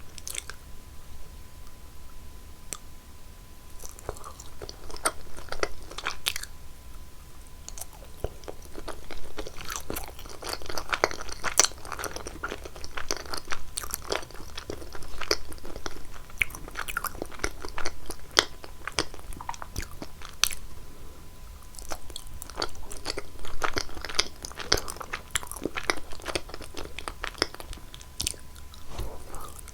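A person eating close to the microphone: repeated crisp bites and wet chewing, with irregular crackly crunches, from cheese and cheese desserts eaten for eating-sound ASMR.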